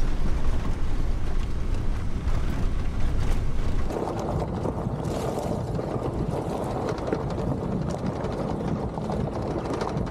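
Fiat Ducato camper van driving on a gravel road: a steady low rumble of engine and tyres heard from inside the cab. About four seconds in the sound changes to wind on the microphone over the crackle of gravel under the tyres.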